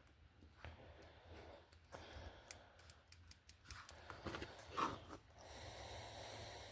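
Faint light clicks and taps of tiny slot car parts being handled at the bench, with a quick run of clicks in the middle and one louder tap. A faint steady hiss follows near the end.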